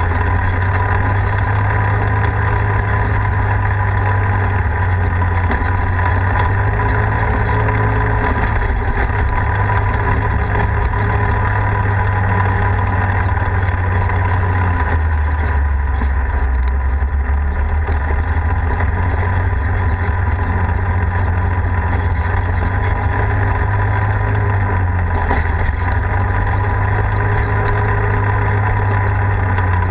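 Polaris RZR side-by-side engine running as it drives along a dirt trail. The engine note drops lower about halfway through, then picks back up near the end.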